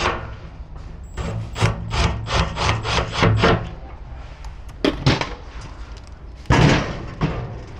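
Metal grill parts and tools tapping and knocking during assembly: a quick run of taps, then a few separate knocks, the loudest near the end.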